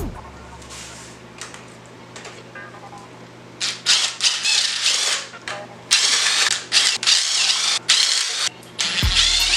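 Handheld power tool run in repeated short bursts, each about half a second to a second long, starting a few seconds in, with quieter clicking before it.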